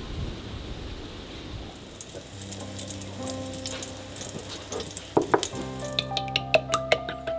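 Soft background music with held notes comes in about two seconds in over faint sizzling of purple cabbage frying in a pan. From about five seconds in, sharp loud clicks and pops come several times a second.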